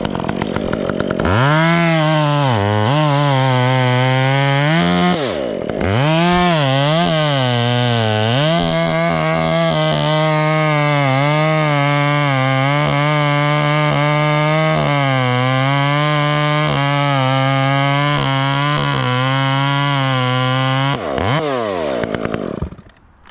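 Chainsaw revving up from idle about a second in and cutting into oak at full throttle, its pitch sagging and recovering as the chain bites the wood, with a brief let-off about five seconds in. Near the end it revs down and the sound drops away.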